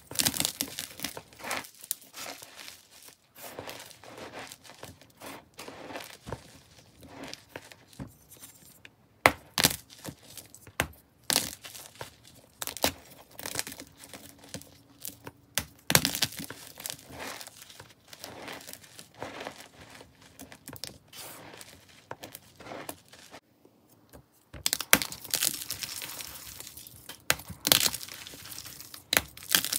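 Hands snapping and crushing soft blocks of chalk into powder: irregular sharp cracks and crunches with crumbly rustling between them. There is a brief pause about three-quarters through, then denser crunching.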